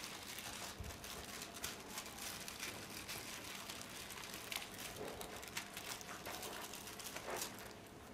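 Faint crinkling and rustling of a silicone sheet and release film being stretched and smoothed by hand over a plaster foot cast to work out wrinkles.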